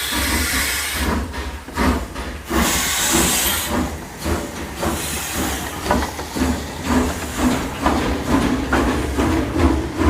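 Steam locomotive under way: long bursts of steam hissing in the first few seconds, over a steady rhythm of short chuffs and knocks with a low rumble.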